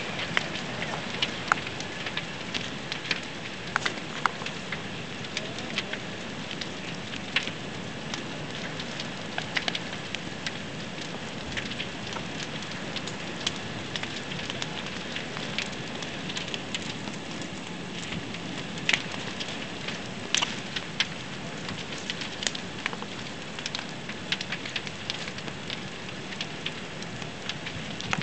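House fire burning through its timber roof and gable, with frequent irregular sharp crackles and pops over a steady rushing noise.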